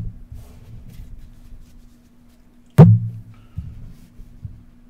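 Trading cards handled on a tabletop: a light tap as a card is set down, then almost three seconds in one loud knock on the table with a short low ring, amid soft handling rustle over a steady low hum.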